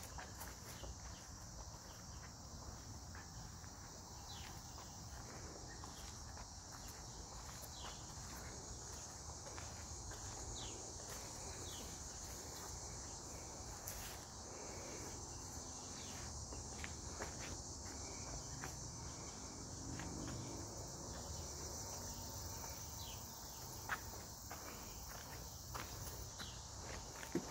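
Steady high-pitched insect chorus, with footsteps on pavement and a few light clicks; a sharper click near the end.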